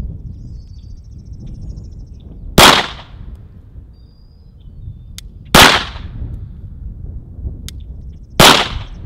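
Three pistol shots fired deliberately, about three seconds apart, each a sharp crack with a short echoing tail.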